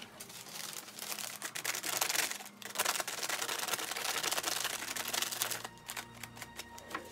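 A crumpled sheet crinkling and rustling in many small crackles as a gloved hand presses and dabs it against a wet spray-painted canvas to texture the paint.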